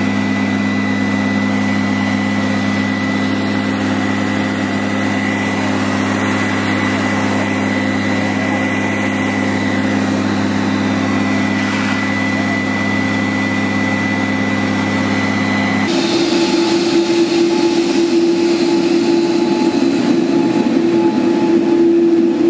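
Airport crash-rescue fire truck's engine and water pump running steadily while its turrets spray water, a constant hum with a noisy wash over it. About two-thirds of the way through the sound switches abruptly to a different steady engine hum with a higher tone, the engines of a taxiing Boeing 787 airliner.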